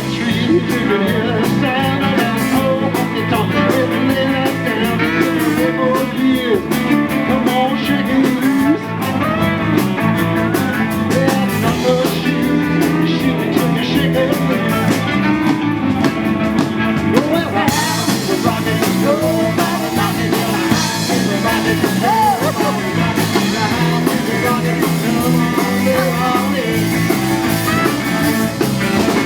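Live band playing rock and roll, with a singer and guitar.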